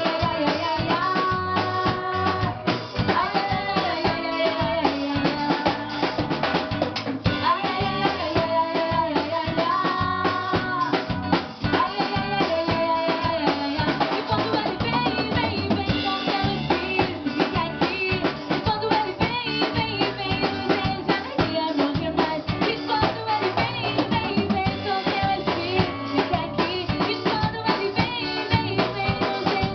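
A band playing carnival music: a drum kit with snare, bass drum and rimshots keeps a steady beat under a melody of held notes.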